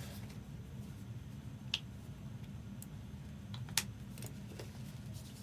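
Low steady hum with a handful of short, sharp clicks, the two loudest about two seconds in and near four seconds in.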